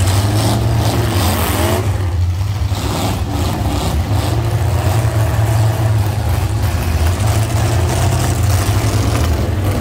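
Demolition derby cars' engines running and revving, several at once, loud and continuous with pitch rising and falling.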